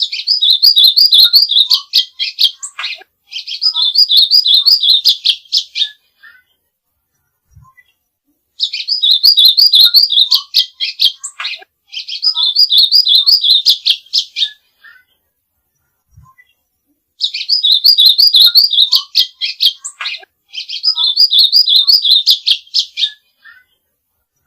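Songbird masteran (training song recording): fast, high trilled phrases in pairs of about three seconds each, split by short gaps and longer pauses. The same pattern comes round three times, as a looped recording does.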